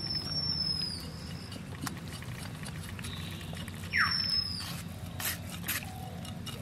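Knife scraping and cutting wet goat tripe, with scattered short scrapes and clicks. Two high thin squeaks, slightly falling in pitch and about a second long, sound at the start and again about four seconds in.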